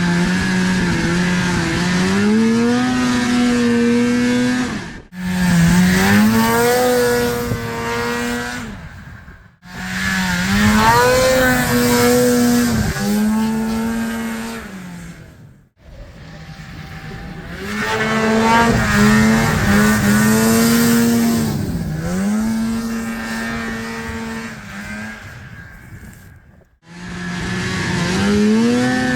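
Snowmobile with a swapped-in Rotax 583 two-stroke twin, run hard at high revs in several bursts. Each time the pitch climbs quickly and then holds high. Between bursts the sound breaks off abruptly.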